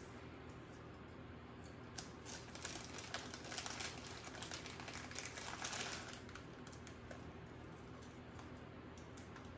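Potato chips crunching as they are chewed, with the foil chip bag crinkling; a quick run of small crackles, busiest between about two and six seconds in.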